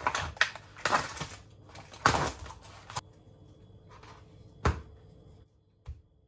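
Kitchen scissors cutting open the plastic film on a tray of pork, with the packaging crackling and rustling in uneven bursts for about three seconds. Then it is quieter, with a single sharp knock about five seconds in.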